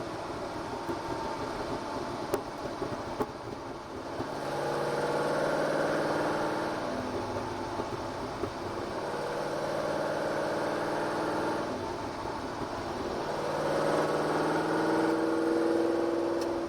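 Ford GT40's V8 engine heard from inside the cockpit on a track run: a steady drone that swells three times under throttle, about four, nine and fourteen seconds in, and eases off between.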